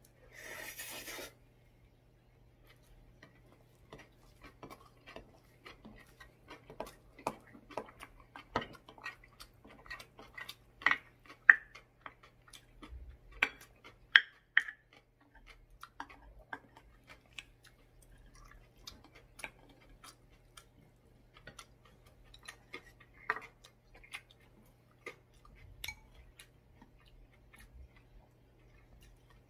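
Close-up eating sounds: chewing bean sprout rice, with a wooden spoon and chopsticks scraping and knocking against ceramic bowls in scattered clicks. The loudest knocks come around the middle. A brief rushing noise opens it.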